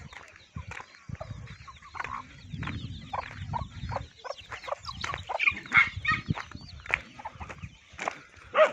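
A flock of chickens clucking and calling, many short calls overlapping, louder about two-thirds of the way through and again near the end.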